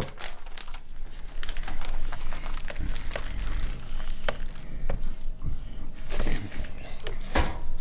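Paper crinkling and rustling with many small clicks as raw steaks are wrapped by hand in butcher paper, with a sharper crackle near the end.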